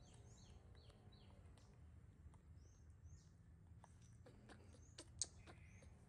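Faint birds chirping in the background: a series of short, high, falling chirps, most in the first second and a half. Several small clicks come later, with one sharper click about five seconds in.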